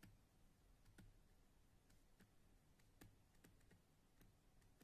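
Near silence with a dozen or so faint, sharp clicks at irregular intervals.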